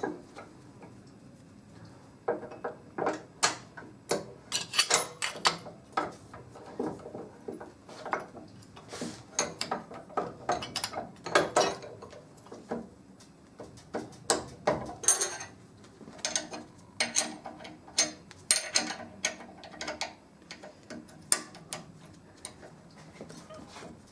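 Irregular metallic clicks, taps and knocks as a starter motor's reduction gear housing is clamped in a steel bench vise and a spanner is fitted to its output gear nut. The knocking starts about two seconds in.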